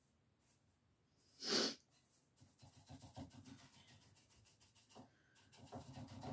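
A short, sharp breath about a second and a half in, then faint scratchy brushing as a chip brush works over gold leaf.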